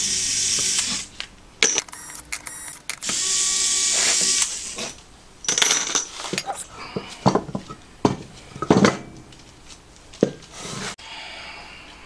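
Bolts being run out of an aluminium engine crankcase with a driver tool, in two runs of about a second each. Sharp clinks and knocks of metal parts being handled and set down follow.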